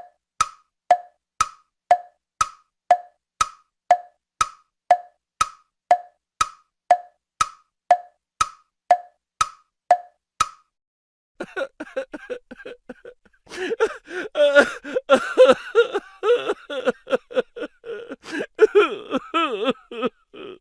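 Wood-block tick-tock sound effect: sharp clicks about two a second, alternating a higher and a lower tock, stopping after about ten seconds. From about eleven seconds a different, denser clip follows, with wavering pitched sounds.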